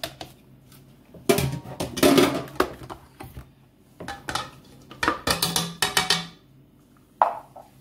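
Plastic food-processor work bowl clattering and knocking as it is handled and lifted off its base, with a utensil scraping and tapping mashed chickpeas out of it into a ceramic mixing bowl. The clatter comes in two bursts, about one to three seconds in and again about five to six seconds in, with a sharp knock near the end.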